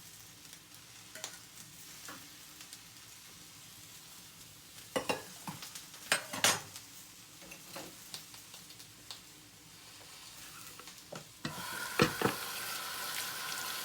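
Eggplant frying in oil in a pan, a quiet sizzle, with a few sharp utensil knocks against the pan about five and six and a half seconds in. Near the end a water tap starts running.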